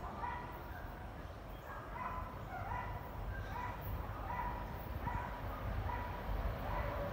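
A dog yipping over and over, short high barks about one every second, over a low rumble that grows near the end.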